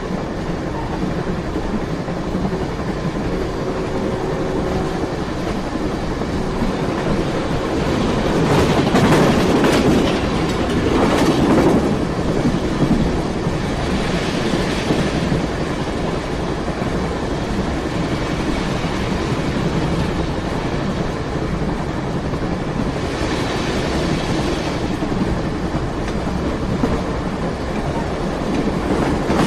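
Train running on the rails: a continuous rumble with several louder surges, the strongest about nine to twelve seconds in.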